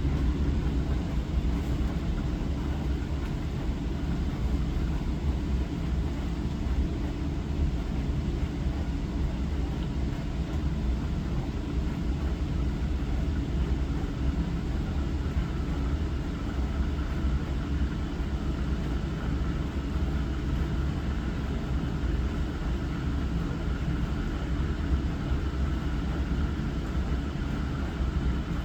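Hava glass-front dishwasher running its wash cycle: a steady low rumble from the pump with an even hiss of circulating water spray.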